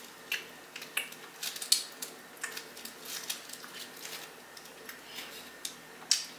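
Close-miked crackling and clicking of a bread loaf being torn apart by hand on its paper wrapper, with a sharper crackle near the end as a piece is bitten.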